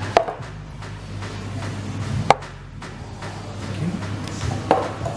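Background music with a steady low hum, broken by three sharp knocks of ceramic cups being set down on a wooden bench.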